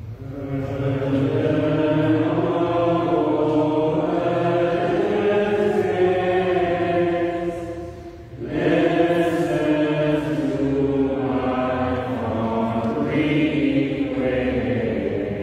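Voices singing a slow, chant-like hymn in long held phrases, with a short break for breath about eight seconds in.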